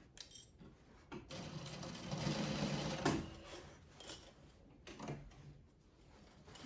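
Juki sewing machine stitching in one short run of about two seconds, going back over the seam where the strap is sewn in to secure it. A few light clicks and fabric rustles come before and after it as the bag is handled under the presser foot.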